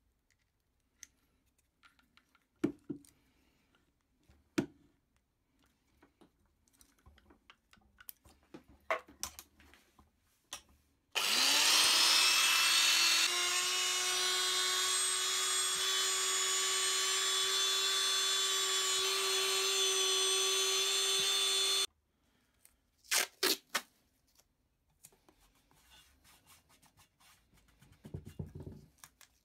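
An old Wolf electric hand drill, with a small rotary bit in its chuck, spins up with a quickly rising whine and runs steadily for about ten seconds, then stops suddenly. Before it there are a few sharp clicks of the chuck key and handling.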